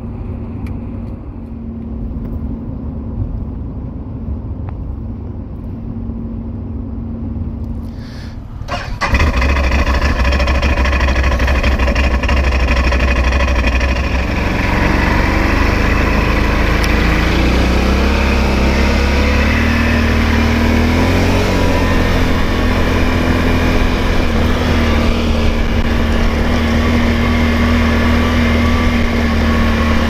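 Road noise and engine hum heard from inside a vehicle driving on the highway, then about nine seconds in a much louder Can-Am Outlander ATV's V-twin engine cuts in close up. Its engine note rises and falls for several seconds, then settles into a steady run.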